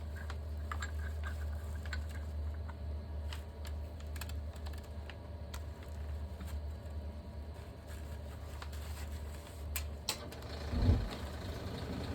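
Light scattered clicks and taps of a brake caliper piston being worked into its bore by hand, with one louder knock near the end, over a steady low hum.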